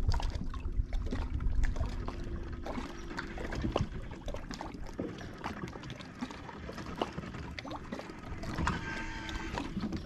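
Water lapping against a fishing boat's hull, with low wind rumble on the microphone, strongest in the first two seconds, and scattered light clicks.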